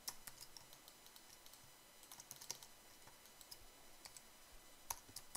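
Faint, irregular clicking of a computer keyboard and mouse, with a few sharper clicks near the start, midway and near the end.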